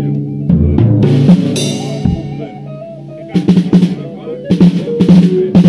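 Live band music: a drum kit with snare and bass drum hits and a cymbal crash over held pitched notes. The drums thin out for a moment in the middle, then come back in with quick, busy hits.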